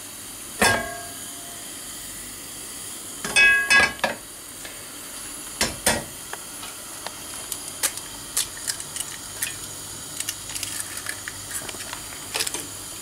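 Eggs rapped against the rim of a metal frying pan: a sharp ringing knock about half a second in and a quick cluster of knocks around four seconds in as a shell cracks open. From the middle on, light scattered crackling as the raw egg meets the heating oil in the pan.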